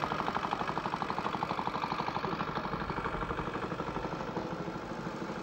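An engine running steadily with a rapid, even chugging beat.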